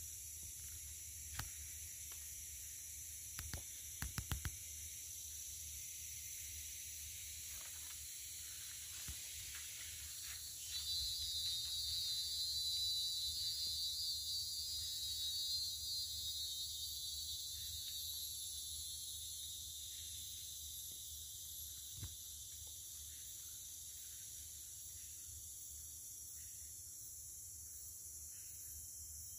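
Tropical forest insects keep up a steady high-pitched hiss. About ten seconds in a louder, high buzzing insect call swells up and fades out again by about twenty seconds. A few sharp clicks are heard, several of them close together about four seconds in.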